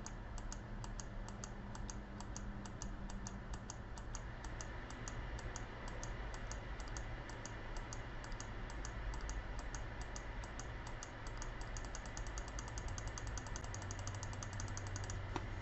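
Computer mouse button clicked rapidly over and over, several light clicks a second, quickening near the end, with a faint steady hum beneath: repeated clicks on a phone settings entry to unlock Android developer mode.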